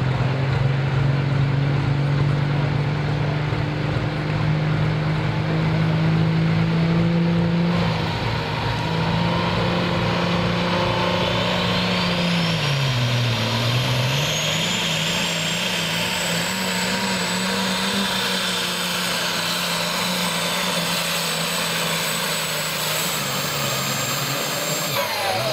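Turbocharged diesel engine of a Super/Pro Stock pulling tractor, held at high revs at the start line, then dragged down briefly about halfway through as it takes up the load of the sled before climbing again. A high turbocharger whistle rises and holds through the pull, cutting off near the end.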